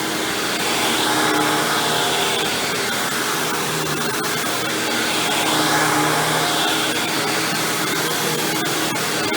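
Hoover WindTunnel Supreme upright vacuum with a chevron brush roll running steadily, its tone shifting every second or two as it moves.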